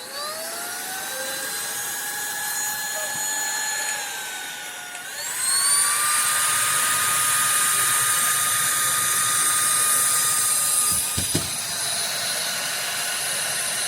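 Cordless stick vacuum's motor (Toshiba Torneo VC-CLS11-S) spinning up with a rising high-pitched whine and running steadily. About four seconds in, the pitch dips, then climbs to a higher, louder speed. A short knock comes near the end, after which it runs slightly quieter.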